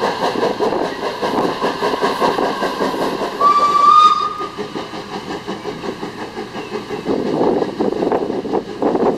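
Small saddle-tank steam locomotive running with a fast, even beat of exhaust chuffs. About three and a half seconds in, its steam whistle gives one short high blast. The chuffing gets heavier near the end as the engine works harder.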